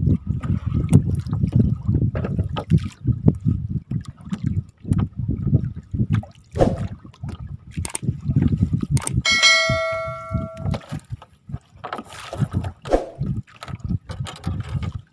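Water splashing and wind rumbling on the microphone as a gill net is hauled by hand into a small boat, with sharp knocks of net and floats against the hull. About nine seconds in, a notification-bell chime from the subscribe-button overlay rings for about a second and a half.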